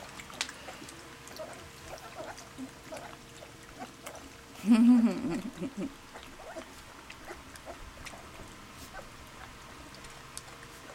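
Young Labrador puppies lapping goat's milk from a stainless steel bowl, with many small wet ticks and slurps and quiet squeaks and groans. About halfway through, one louder, longer groaning whine lasts about a second.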